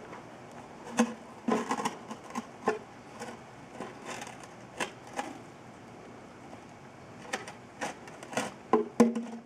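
Javelinas foraging at a coffee canister on gravel: a dozen or so irregular short knocks and scuffs, the loudest near the end.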